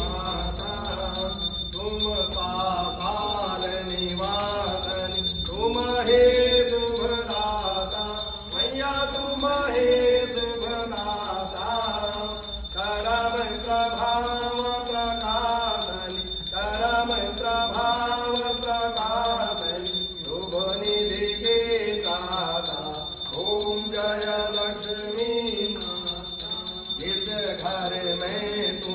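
A Hindu priest chanting Sanskrit mantras at a havan, a melodic recitation in phrases of about two seconds each.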